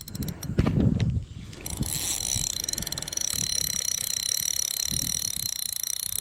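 Ultralight spinning reel clicking rapidly and steadily while a hooked carp pulls against it, after about a second and a half of low handling rumble.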